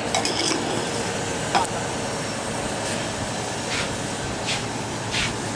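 Steady background noise of a busy bar, with faint voices and a few short glass clinks.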